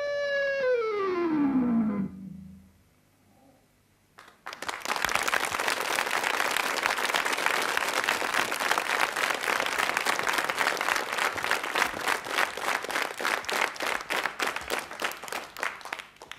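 An electric guitar's final note sliding steadily down in pitch over about two seconds and dying away, then a short silence. About four seconds in, applause starts and keeps going, fading just before the end.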